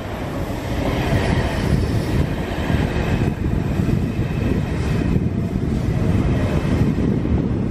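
ICE 1 passenger cars rolling past close by, steel wheels rumbling on the track. The set is being towed unpowered by a diesel locomotive after overhead-line damage.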